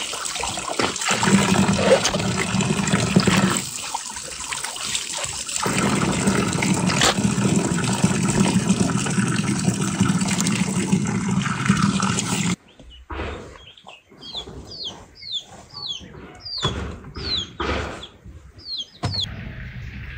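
Water running and splashing steadily, cutting off abruptly about two-thirds of the way through. After that, a bird chirps repeatedly in short, quick falling calls.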